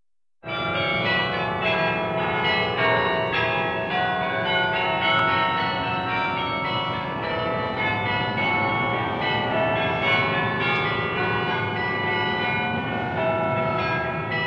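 Church bells ringing a melody, many bells struck in quick succession with their tones overlapping and ringing on, starting about half a second in.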